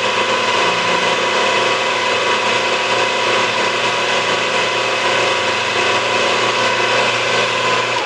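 Milling machine spindle running steadily while a small center drill cuts into a jack hub, a dense machine hum with several steady tones.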